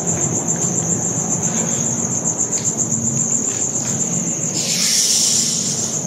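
Crickets chirping in a steady chorus, a continuous high pulsing trill, with a brief hiss about five seconds in.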